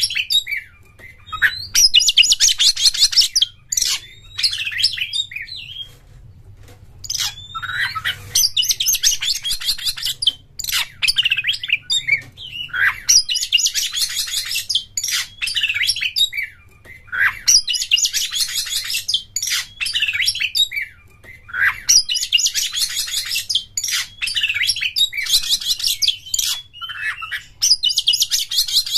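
Oriental magpie-robin (kacer) singing: dense bursts of fast, stuttering chatter every few seconds, the 'konslet' style, between short whistled notes that slide up and down.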